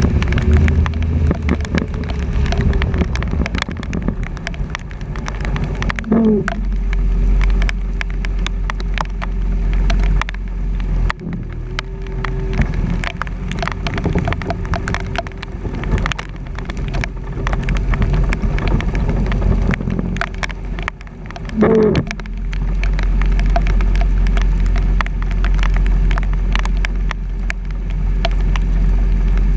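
Truck driving in heavy rain, heard from a camera on its front bumper: engine and wet-road noise with a steady drone and a low rumble, and rain crackling on the camera housing. Twice the drone briefly rises and falls in pitch.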